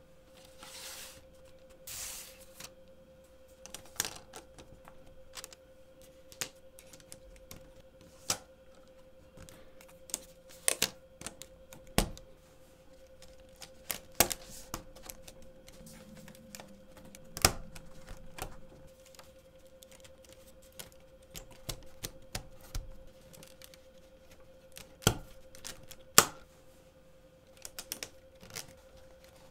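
LEGO plastic plates clicking and clacking as they are pressed together and handled, in irregular single clicks spread a second or more apart, with a short rustle of plastic about a second and two seconds in. A faint steady hum runs underneath.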